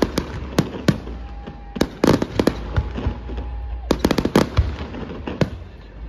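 Aerial fireworks shells bursting overhead: a string of sharp bangs, some in quick clusters of several cracks and others single booms spaced between them.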